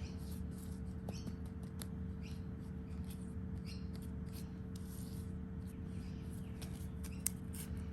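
Hands working seeds into potting mix in a seedling tray: many short scratchy rustles and light clicks, with one sharper click near the end, over a steady low hum.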